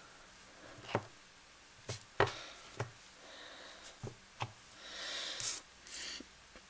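A rubber stamp on a clear acrylic block tapped again and again onto an ink pad, making a series of short, light knocks, with soft brushing rustles between them.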